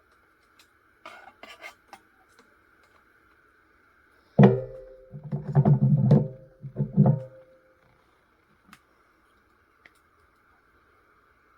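A few light clicks, then a sudden loud run of clanks and knocks with a ringing metallic tone. It starts about four and a half seconds in and lasts around three seconds, like metal parts and tools being handled on a workbench and against a radio chassis.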